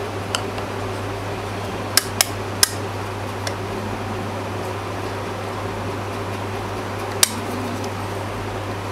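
Sharp clicks and clinks of a reballing stencil fixture and its parts being handled: three quick ones about two seconds in and another near the end. They sit over a steady fan-like hum.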